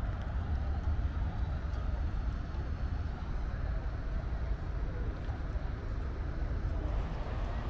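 Steady outdoor ambience: a constant low rumble with a fainter hiss above it and no distinct events. A faint high whine comes in near the end.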